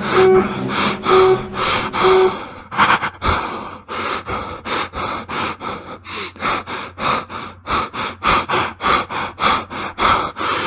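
Fast, heavy panting: a person gasping for breath about three to four times a second. For the first two seconds or so, a tune with a repeated plucked note from the previous effect is still playing.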